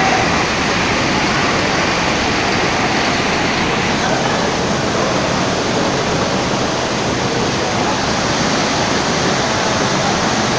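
Vertical sump pump running, its discharged water rushing and splashing in a steady, unchanging stream.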